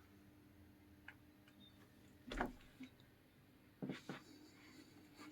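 Near silence: quiet room tone with a faint steady hum, broken by a soft knock about two and a half seconds in and two quick clicks a second and a half later.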